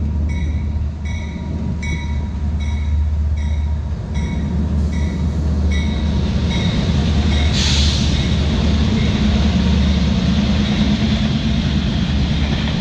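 CSX diesel freight locomotives pull out of a tunnel and pass close by, engines rumbling deeply, with a bell ringing about twice a second that fades away after about seven seconds. A short burst of hiss comes about eight seconds in, and then the container cars roll by with a steady rushing noise.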